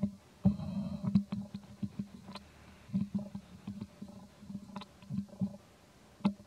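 An irregular series of short, dull low thumps with sharp clicks among them, coming in clusters that start about half a second in.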